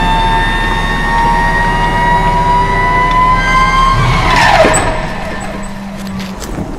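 Electronic soundtrack: several held synthesizer tones over a low hum, slowly rising in pitch, then a quick downward pitch sweep about four and a half seconds in, after which the sound thins out.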